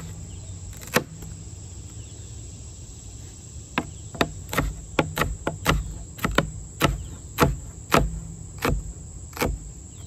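Chef's knife chopping jalapeño peppers on a plastic cutting board. A couple of single knocks come first, then from about four seconds in a steady run of chops, roughly two a second.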